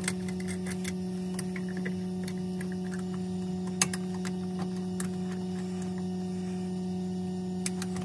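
Small metallic clicks and ticks as wing nuts are spun back onto the studs of an air-conditioning sea strainer lid by hand, one sharper click about four seconds in. Under them runs a steady machinery hum.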